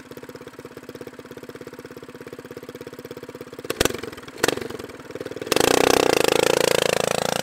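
Small single-cylinder engine of an off-road go-kart running with a rapid, steady putter, two sharp clicks about four seconds in, then revving up much louder for about two seconds near the end before cutting off.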